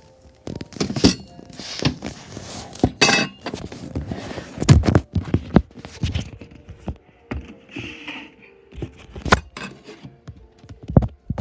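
Handling noise from a phone camera rubbing against a fleece robe and a hand as it is carried: irregular knocks and thumps with fabric rustling between them.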